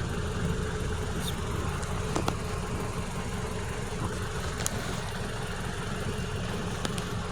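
Car engine idling steadily, with a couple of faint clicks.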